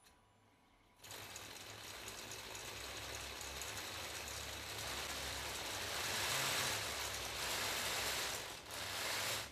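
3D-printed RC tank tracks running on the bench, driven by brushed 540 motors: a steady mechanical whir that starts about a second in, grows louder, dips briefly near the end and stops.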